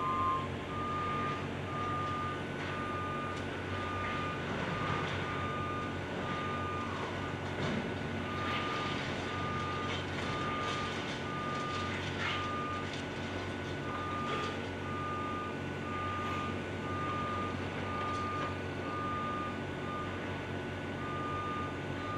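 Construction machine's back-up alarm beeping steadily, about two beeps a second with a few short pauses, over a diesel engine's steady drone. A few knocks sound around the middle.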